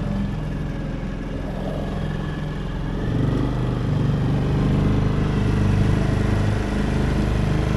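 Small outboard motor pushing an aluminium tinny along at a steady speed, running louder from about three seconds in.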